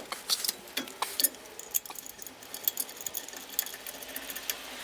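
Light, irregular metallic clicks and clinks as a brake caliper is set back over new pads and its two mounting bolts are started by hand.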